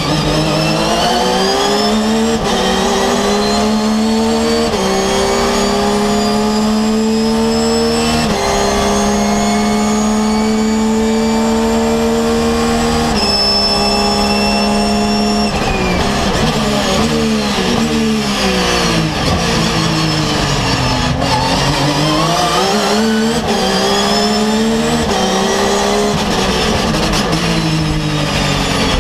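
Porsche GT3 R race car's flat-six engine heard from onboard, pulling hard through the gears with several quick upshifts, holding high revs down a straight, then dropping through a string of downshifts with throttle blips under braking about halfway through, and accelerating up through the gears again.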